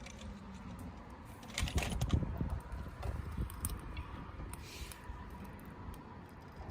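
Wood campfire crackling, with irregular sharp pops and snaps. A louder low rumbling thump comes in about a second and a half in and lasts under a second.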